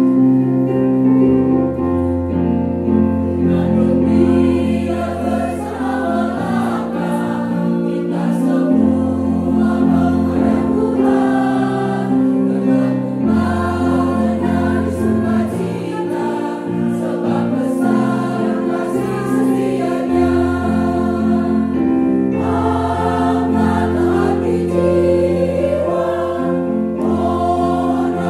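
Women's church choir singing a hymn in several-part harmony, over keyboard accompaniment with sustained bass notes.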